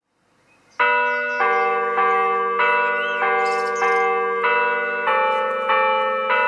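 Bells ringing a tune, struck in a steady sequence about every two-thirds of a second, each note ringing on under the next; they start about a second in after near silence.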